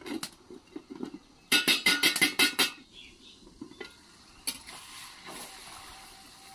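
Steel cookware clattering: a quick run of about eight sharp, ringing metallic clanks as a steel lid and spatula knock against a steel kadai. After that comes a single click and a faint steady hiss from the pot.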